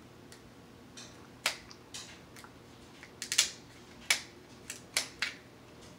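Cooked king crab leg shells being cracked and snapped apart by hand: a string of sharp cracks and snaps, the loudest a little past the middle.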